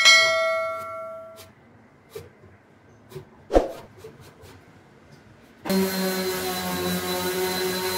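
A sharp metallic clang from a metal saw blade being worked at a cricket bat, ringing on for about a second and a half, and a single knock a few seconds later. Near the end an electric orbital sander runs steadily on the willow bat face, a continuous motor hum.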